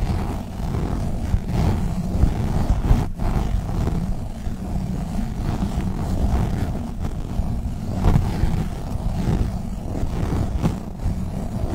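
Globbles sticky squishy toys squished and rubbed close against the microphone, giving a dense low rumble with a sharp click about three seconds in.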